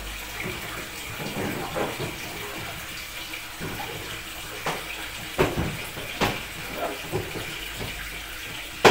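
Water sloshing and splashing inside a top-loading washing machine tub while hands work in it, with a few sharp knocks from about halfway through.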